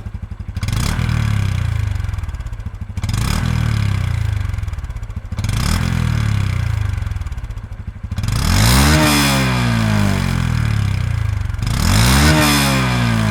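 2019 Honda Super Cub C125's 125cc air-cooled single-cylinder engine on its factory exhaust, warm, blipped three times from idle and then revved twice hard toward redline, each rev rising in pitch and falling back to idle.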